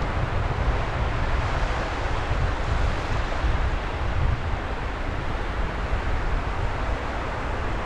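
Wind buffeting the microphone with a steady low rumble, over the constant rushing wash of sea waves on the shore.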